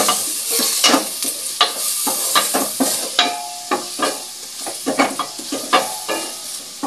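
Ginger, onion and garlic sautéing in a stainless steel pot, sizzling while a wooden spatula stirs, with many short knocks and scrapes of the spatula against the pot. The sizzle grows fainter toward the end.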